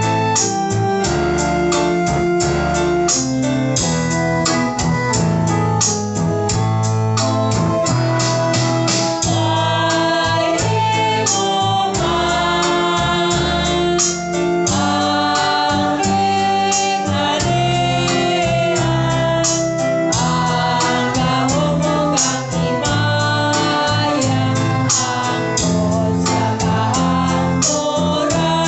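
Church hymn: voices singing over keyboard accompaniment with a steady beat.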